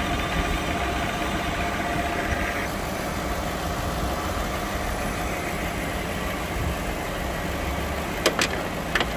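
Lexus LX470's 4.7-litre V8 idling with the air-conditioning compressor running while refrigerant is charged, the system now close to full. A steady whine over the engine stops about two and a half seconds in, and a few sharp clicks come near the end.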